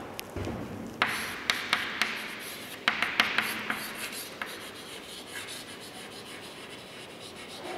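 Chalk writing on a chalkboard: scratchy strokes broken by sharp taps as the chalk strikes the board, busiest in the first half and quieter after about four and a half seconds.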